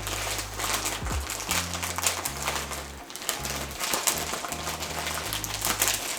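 Plastic bags of model-kit parts crinkling as they are handled, over background music with a steady bass line.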